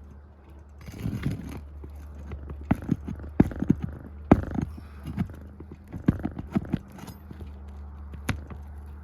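Irregular knocks, taps and scuffs of hands, tools and knees working on asphalt shingles during a roof repair, over a steady low hum.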